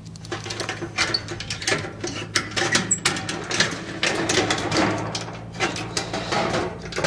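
Steel roofing panel and trim pieces being handled and bent by hand: irregular metallic clanks, taps and rattles, over a steady low hum.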